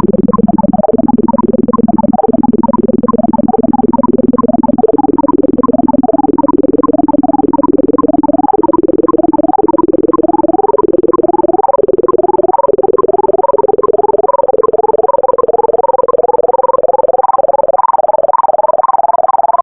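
Synthesized sonification of a selection sort: rapid electronic beeps scan through the unsorted values while a held lower tone steps up in pitch at each pass as the next smallest value is placed. The passes come faster and faster toward the end.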